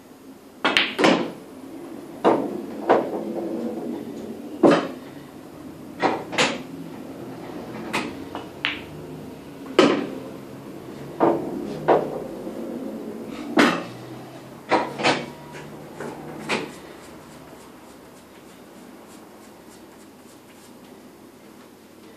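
Pool balls clacking sharply against each other again and again, with a low rolling rumble between the strikes. The clacks come roughly once a second for about sixteen seconds and then stop.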